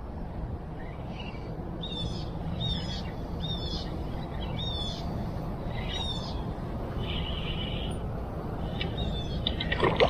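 Birds calling over and over: short, high chirping notes that sweep in pitch, roughly one a second, with a brief buzzy call about seven seconds in, over a steady low background rumble.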